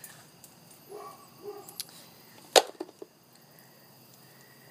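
A single sharp knock about two and a half seconds in, followed closely by two lighter clicks, against quiet room sound.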